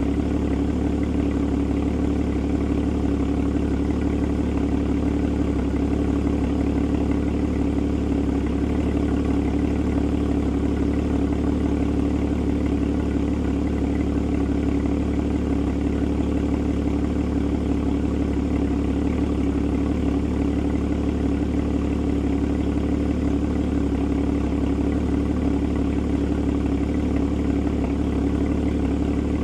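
Porsche Boxster (981) flat-six engine idling steadily, with an even, unchanging note.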